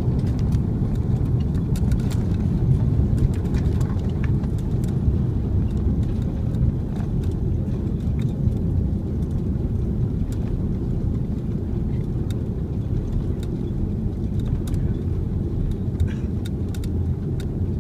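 Airbus A330-200 landing rollout heard inside the cabin over the wing: a deep, steady rumble of engines and wheels on the runway that slowly eases as the aircraft slows, with light clicks and rattles from the cabin.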